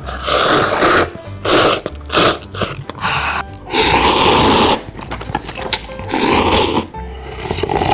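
A person slurping curry ramen noodles from a cup, in about six long slurps with short breaks between them.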